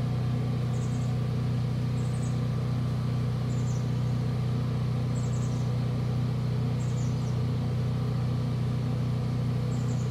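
A steady low machine hum, unchanging throughout, with faint short high chirps recurring every second or two.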